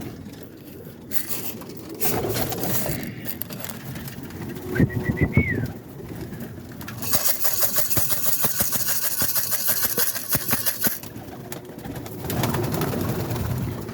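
Roller pigeons cooing inside a loft. A few knocks and a short squeak come about five seconds in, then a stretch of rapid clattering lasts about four seconds.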